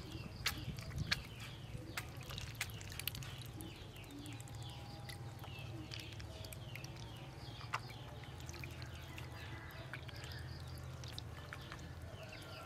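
Ducklings peeping: a constant run of short, high, falling chirps from several birds at once, with small splashes and drips as they swim and dabble in shallow water. A low steady hum runs underneath.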